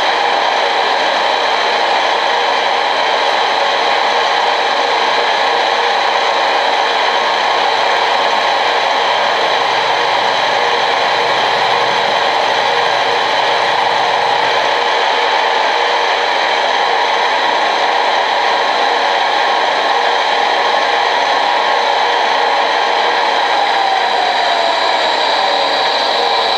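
Machine spindle running steadily, a loud even whir with several steady whining tones, as the tool feeds down to depth in the part. Near the end one tone slides down in pitch.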